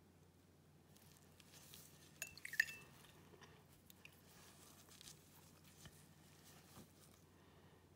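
Quiet room with faint scattered clicks from a paintbrush, miniature and palette being handled, and one brief, light clink with a short ring about two and a half seconds in.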